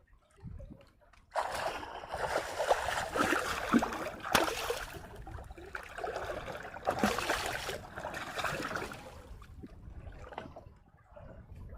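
Water sloshing and splashing, starting about a second in and fading out near the end, with one sharp knock a few seconds in.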